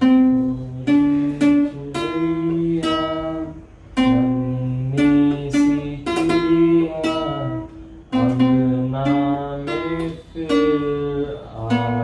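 Acoustic guitar played by a young learner: a short melody of plucked notes over low bass notes, each note ringing before the next, the same phrase played three times.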